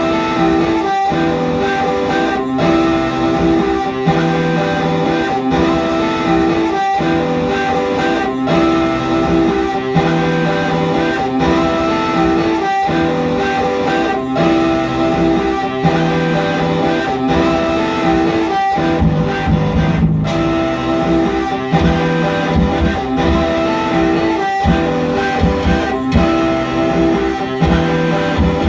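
Live music on electric guitar and keyboard, loud and steady, built on a pattern that repeats about every second and a half.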